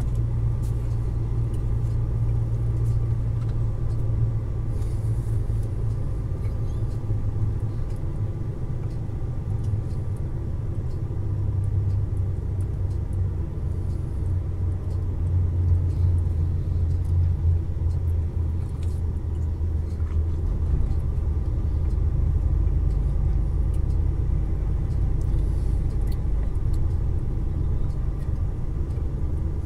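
Truck engine running steadily at low road speed, heard as a deep, continuous drone from inside the cab; its pitch steps down a little partway through.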